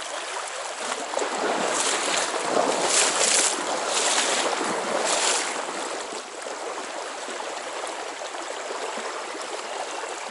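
Small trout stream running, a steady rush of water, with a louder stretch of rushing or splashing water noise from about one to six seconds in.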